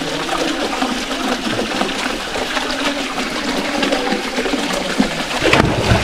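Water running steadily down the rock into a canyon pool. Near the end a person drops into the pool with a heavy splash.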